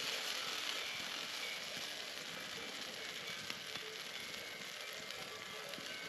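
Potato waffle batter sizzling in a hot, oiled waffle iron over a fire: a steady hiss with small crackles.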